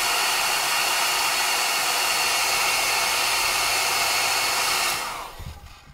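Handheld hair dryer blowing hot air steadily onto the opened phone to soften the battery's adhesive tape. It is switched off about five seconds in and its fan winds down, followed by a soft knock.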